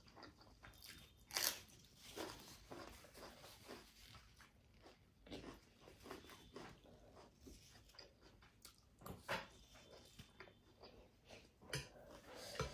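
Faint sounds of eating seafood: chewing and biting, with scattered small clicks and crunches, the sharpest about a second and a half in and again near the end.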